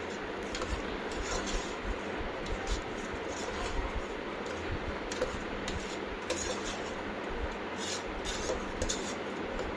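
Steel ladle stirring soaked rice and tomato masala in a pressure cooker pot: steady scraping and rustling broken by frequent light clicks of the ladle against the pot.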